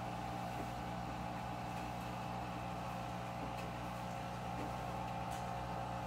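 Front-loading washing machine's drain pump running with a steady hum while the machine drains before its spin.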